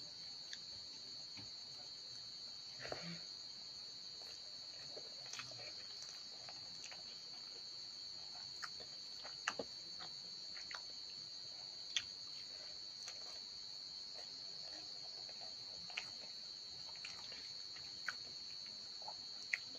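Crickets chirring steadily at a high pitch, with scattered sharp clicks and taps as rice is mixed by hand in a steel bowl.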